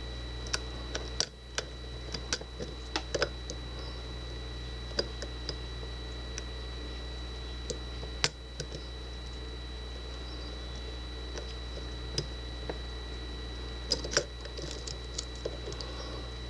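Lock-picking hook and tension tool working a Master Lock deadbolt's pin-tumbler cylinder: small, irregular metallic clicks and taps as pins are lifted against the binding plug, in scattered clusters with one sharper click partway through.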